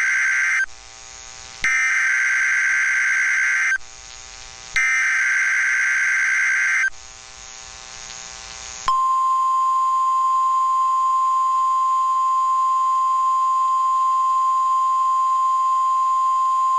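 NOAA Weather Radio emergency alert opening: three harsh digital SAME header bursts, each about two seconds long with roughly a second's pause between (the first already under way). About nine seconds in, the single steady warning alarm tone starts and holds, announcing a severe thunderstorm watch.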